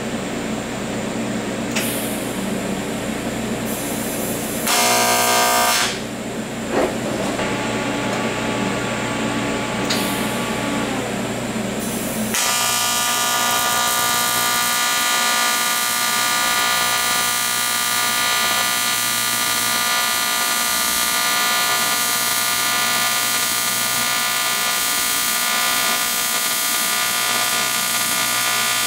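AC TIG welding arc on aluminium plate, buzzing steadily as a bead is laid with filler rod, starting about twelve seconds in. Before that there is a lower machine hum and a brief loud buzz about five seconds in.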